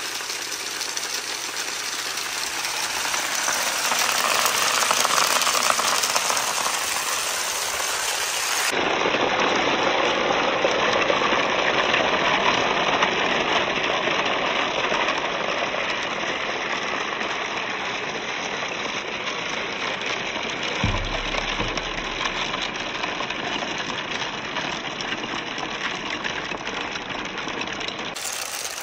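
Water running steadily along a handmade wooden marble-run chute, an even rushing sound. The sound changes abruptly about nine seconds in, and a single low thump comes about twenty-one seconds in.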